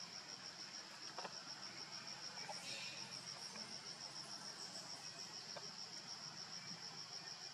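Steady high-pitched insect chirping, a cricket-like trill of even, rapid pulses that keeps the same pace throughout. A brief soft hiss comes about two and a half seconds in.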